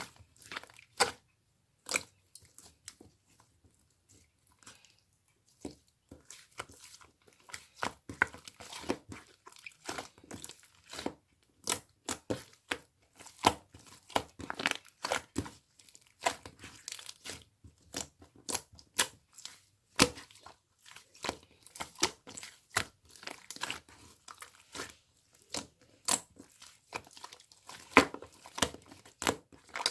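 Hands squeezing, stretching and poking slime, giving irregular sharp sticky clicks and crackly pops.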